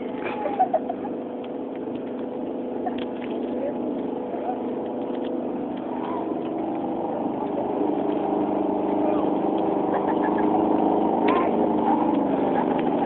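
Lawn mower engine running at a steady pitch, growing louder over the second half. Two brief sharp sounds come just under a second in.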